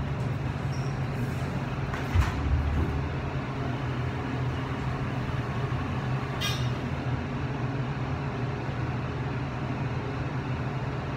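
Elevator cab running between floors with a steady low mechanical hum. A low thud comes about two seconds in and a short click at about six and a half seconds.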